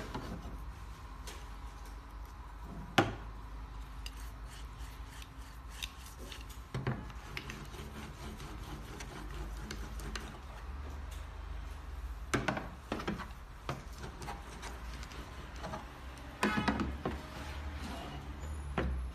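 Wooden spindles and bamboo bows of a bow drill kit being handled: scattered knocks and clatter of wood on the table over rubbing of wood and cord. The loudest knock comes about three seconds in, and a quick cluster of knocks comes near the end.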